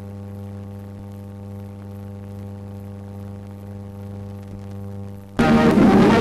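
Steady low electrical hum with a few faint ticks on an old film soundtrack. About five seconds in, loud orchestral newsreel title music with brass cuts in abruptly.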